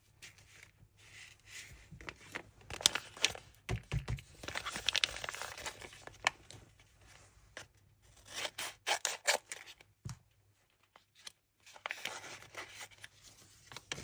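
A paper blind bag being handled and cut open with scissors: paper rustling and crinkling, sharp scissor snips, and the paper tearing, in several bouts with a short quiet pause before the last one.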